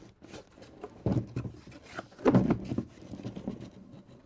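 Cardboard case and shrink-wrapped trading-card boxes being handled: a run of irregular knocks and scrapes, the loudest a little past two seconds in.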